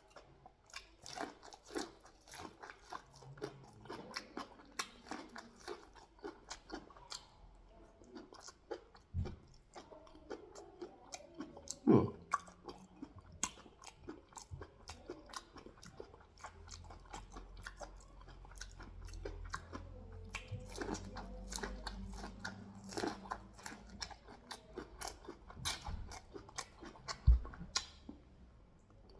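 Close-up mouth sounds of eating sweet corn with pear: repeated bites and crunchy chewing, with a couple of louder knocks and a faint low hum in the background during the second half.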